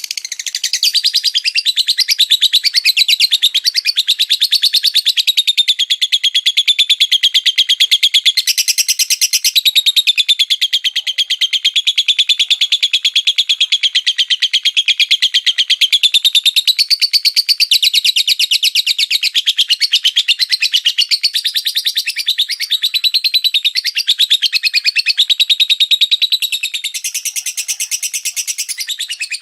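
A songbird singing a long, unbroken, high-pitched song of rapid chattering notes, with shriller passages about nine seconds in and near the end.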